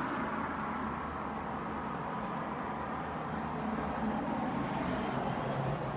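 A homemade record cleaning machine running, a steady motor noise with a faint hum, growing slightly louder in the second half.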